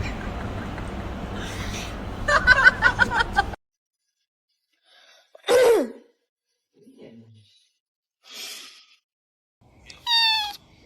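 Background music with pitched notes for the first few seconds, then cuts off. A few short, separate calls follow in the quiet: a falling call, a short breathy puff and, near the end, a high rising mew, typical of a small kitten.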